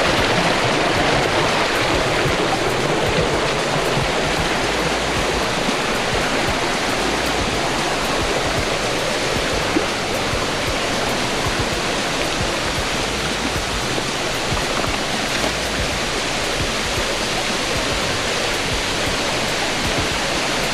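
Waterfall and its river rushing, a loud, steady wash of falling water.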